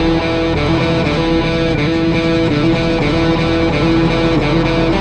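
Background music led by guitar, playing a melody of held notes.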